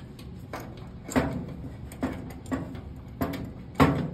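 About six sharp knocks and clunks, irregularly spaced and the loudest near the end, from the Samsung dryer's belt tensioner being worked by hand. The tensioner is loose with a lot of play, which the technician blames for the belt slipping off.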